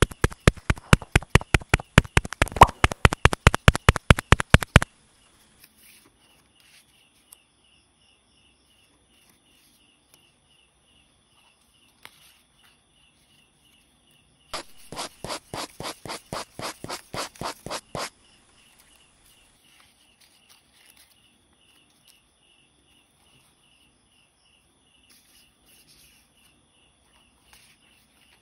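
Paper pestle tapping rapidly into a paper mortar, about seven quick sharp taps a second for nearly five seconds. After a long pause comes a softer run of quick taps lasting about three and a half seconds, as a paper knife chops at a paper papaya on a paper board. A faint, even high-pitched pulsing runs underneath.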